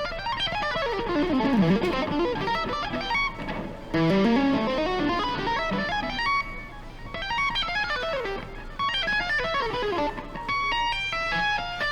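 Electric guitar playing fast runs of notes in symmetrical shapes, sweeping up and down in pitch, with short breaks about four and seven seconds in.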